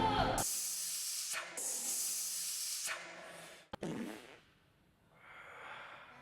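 A person hissing out two long, forceful breaths in a row as if straining at a lift, an exaggerated gym workout noise, followed by a short lower sound that drops in pitch and then quieter breathing.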